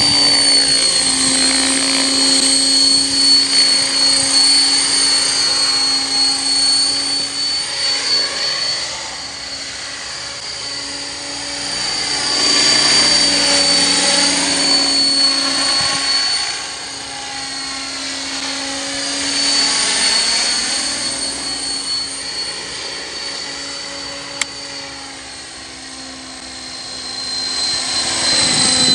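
Electric KDS Innova 550 RC helicopter on KBDD main blades running at flight speed: a steady rotor hum under a high motor-and-gear whine. It lifts off and flies back and forth, the sound swelling and fading several times as it passes.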